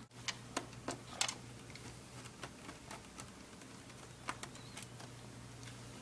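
Faint, scattered clicks and taps of a screwdriver and small plastic parts being handled while screws are removed from a laptop screen assembly, over a steady low electrical hum.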